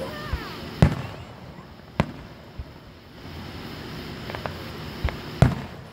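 Aerial fireworks shells bursting: a string of about six sharp booms, the loudest about a second in and again near the end.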